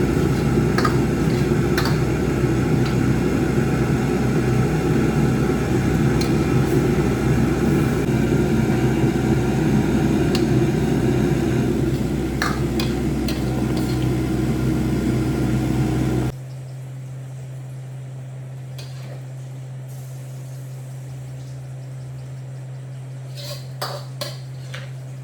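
Steady roar of a gas wok burner with occasional clinks of metal utensils, cutting off abruptly about two-thirds of the way through and leaving a low steady hum with a few more clinks near the end.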